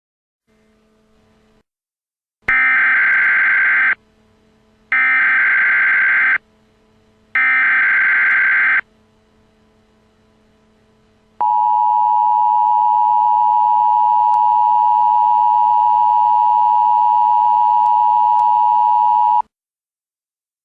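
Emergency Alert System tones opening a new alert. First come three identical short bursts of SAME digital header data, each about a second and a half long, spaced about a second apart. Then the steady two-tone EAS attention signal sounds for about eight seconds and cuts off.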